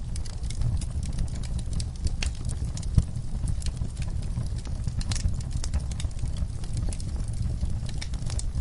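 Wood fire burning in a fireplace: a steady low rumble of flames with irregular crackles and small pops, and one sharp, loud pop about three seconds in.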